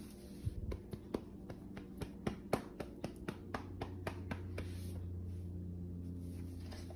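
A quick, uneven run of light clicks or taps, about five a second for some four seconds, then a steady low hum.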